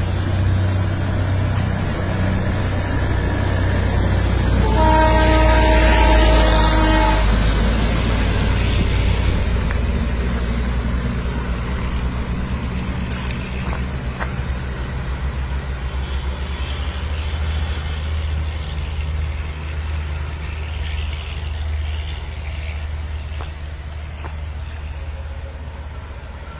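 Steady low engine rumble with one horn blast of about two seconds, about five seconds in. The rumble fades slowly near the end.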